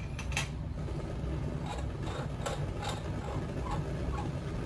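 Steady low rush of a freshly lit Bunsen burner's natural-gas flame together with the fume hood's ventilation, with a few light taps as the striker is set down and the burner is handled.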